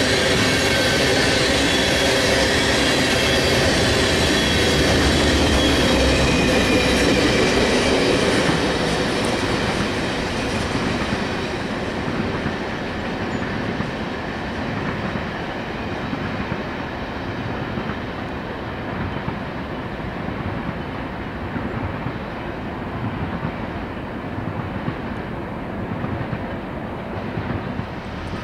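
A freight train of tank cars rolling past, the steady rumble of wheels on rail with a thin high squeal over it. It is loud for the first eight seconds or so, then fades and loses its high end as the rear of the train draws away.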